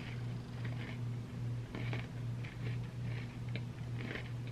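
Close-up chewing of a mint Oreo cookie: soft, irregular crunching and wet mouth sounds several times a second, over a steady low hum.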